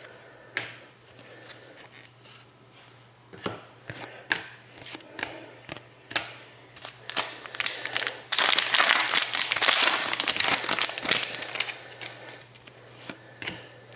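Hockey trading cards being handled: scattered light taps and slides of cards on a table, then a few seconds of loud crinkling about eight seconds in as a foil card pack is opened, followed by more soft card rustles.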